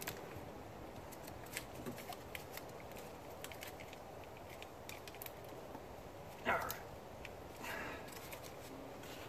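Small plastic clicks and rustling of wires as gloved hands work a wire harness connector into place in a car's engine bay. There are two louder, short rustling noises, about six and a half and nearly eight seconds in.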